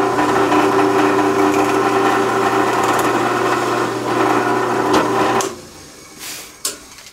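Benchtop drill press motor running steadily while a 5/16-inch twist bit is fed down through two stacked blocks of wood. The motor sound stops about five and a half seconds in, followed by a brief knock near the end.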